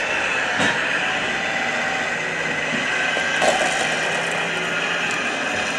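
Steady mechanical running noise of RC model construction machines, with a faint steady hum and two brief knocks, about half a second in and again about three and a half seconds in.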